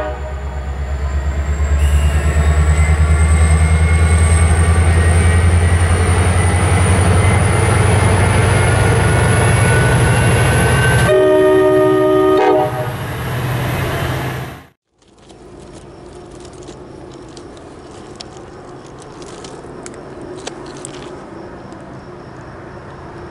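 Diesel locomotive engine running with a loud low rumble and a high whine that rises slowly, then its air horn sounds a chord for about two seconds. The sound cuts off suddenly and gives way to quiet trackside ambience.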